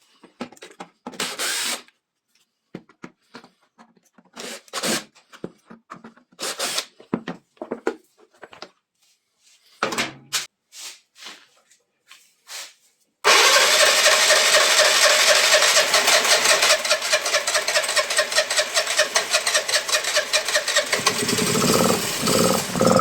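A scattering of short, sharp workshop noises, then about thirteen seconds in the Piaggio Liberty 125 scooter's single-cylinder engine starts suddenly and runs loud and steady, changing in tone near the end.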